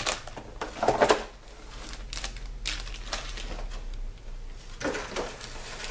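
Long cardboard box and its packaging being handled and opened by hand: irregular rustling and light knocks, loudest about a second in.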